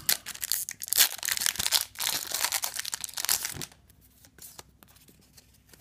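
A Yu-Gi-Oh booster pack's foil wrapper being torn open and crinkled by hand, a dense crinkling that stops about three and a half seconds in.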